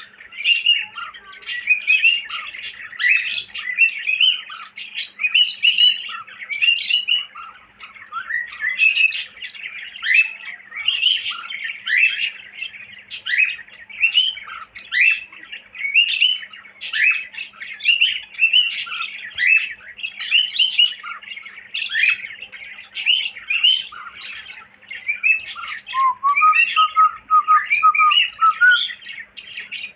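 Pet cockatiel chirping and whistling in a fast, unbroken stream of short rising and falling notes. Near the end it gives a short run of lower, steadier whistled notes.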